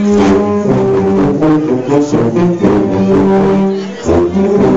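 Sousaphone section playing loud, held low notes together in a phrase, with a short break about four seconds in before the next note.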